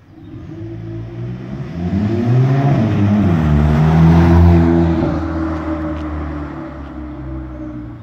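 Catless VW Polo GTI (AW) with its turbocharged 2.0 TSI four-cylinder accelerating up the street and passing close by: the engine note rises in pitch as it pulls, is loudest as the car goes past about four seconds in, then dies away.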